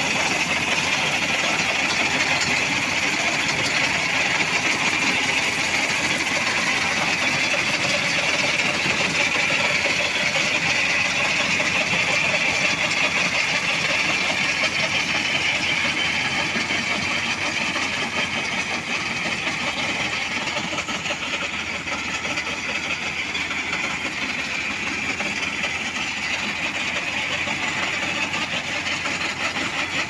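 Tractor engine running with a PTO-driven trailed corn harvester cutting and chopping dry corn stalks: a steady mechanical din that eases slightly about two-thirds of the way through.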